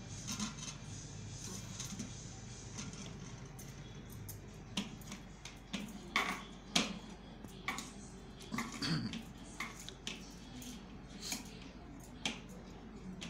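Scattered light taps and clinks of hands kneading a lump of turmeric-and-maida dough on a brass plate, irregular, most of them in the second half.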